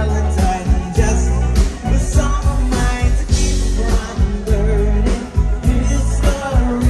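Live pop-rock band playing loud through a festival PA: drums, bass, electric guitars and keyboards.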